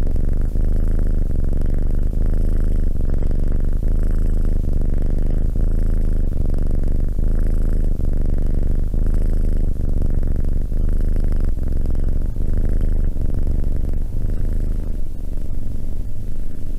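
A tabby kitten purring steadily, recorded close to a microphone, so the purr comes through loud and low. The rumble breaks briefly every second or so as it breathes.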